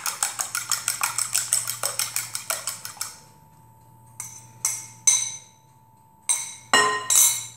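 Fork beating eggs in a small glass bowl: a fast, even run of clinks, about six a second, stopping about three seconds in. Then come a handful of separate clinks, each ringing briefly, as the fork taps and scrapes the glass bowl while the egg is poured out.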